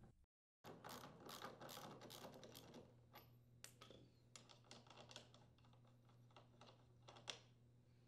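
Faint rapid clicking of a socket ratchet unthreading the auger pulley nut on a snowblower, for about the first three seconds, followed by a few scattered light clicks and taps.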